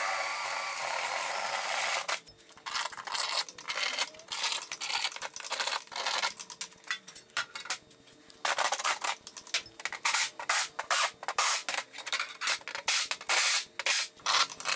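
A cordless drill whirs steadily for about two seconds at the start, then stops. Many short scrapes, rubs and light knocks follow as the steel plate and the drill are handled on the steel frame.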